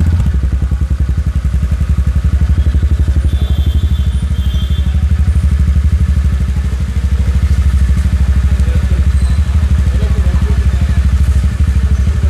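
TVS Ntorq 125 Race Edition scooter's single-cylinder air-cooled 125cc engine idling steadily, heard close to the exhaust, with a rapid, even exhaust pulse.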